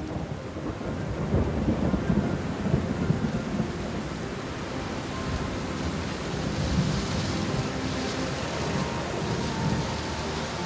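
Thunder rumbling over steady rain. The rumble swells about a second in and is loudest over the next few seconds, then eases into a steady wash of rain.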